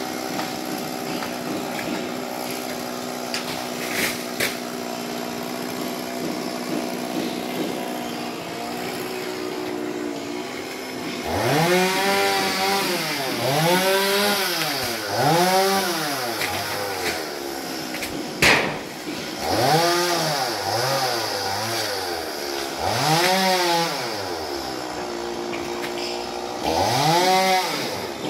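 Two-stroke chainsaw running at a steady speed, then from about eleven seconds in revved up and down again and again, each rise and fall taking a second or two, as it works through the wood of a coconut tree. A single sharp knock comes about two-thirds of the way through.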